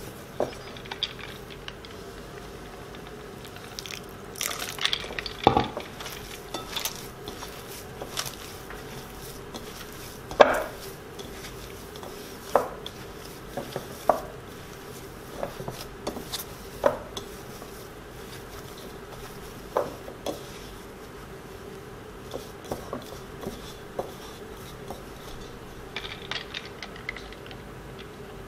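A hand kneading and squeezing crumbly pastry dough together in a glass mixing bowl, with irregular knocks and clicks against the glass every second or two. A faint steady hum runs underneath.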